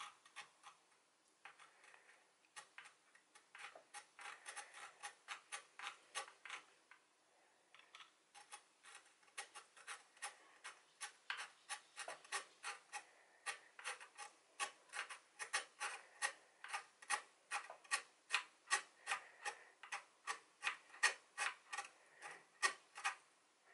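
Full-length hacksaw cutting a slot into the rounded-out head of a seized M3 reservoir cap bolt on a Hope Mini brake lever, in short back-and-forth strokes. The strokes are hesitant for the first couple of seconds, then settle into a steady rhythm of about two to three a second that grows louder.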